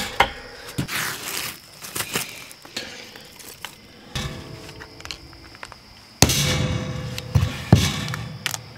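Split wood and kindling knocking and clattering against a stainless-steel fire pit as it is loaded: a string of sharp knocks and thuds, with a louder burst of clatter about six seconds in and two sharp knocks just after.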